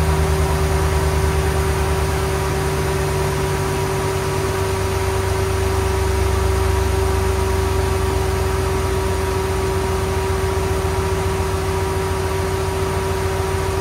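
2010 Ram 1500's 5.7 L Hemi V8 idling steadily on a newly fitted crankshaft position sensor, with a steady hum alongside the low engine note. The idle note shifts slightly about four seconds in.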